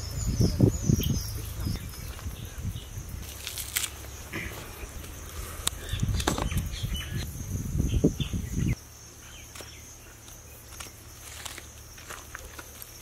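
A steady high insect drone with scattered short chirps and clicks. Low, irregular rumbling thumps come in the first second or so and again from about six seconds in, stopping abruptly near nine seconds.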